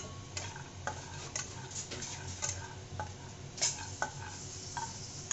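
Almonds and cashews being stirred as they dry-roast in a metal pan: irregular clicks and scrapes of the nuts and spatula against the pan, over a steady low hiss.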